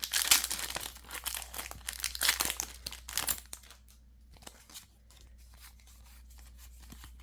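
Foil Pokémon booster pack wrapper being torn open and crinkled for about three and a half seconds, then quieter handling with a few light rustles and clicks.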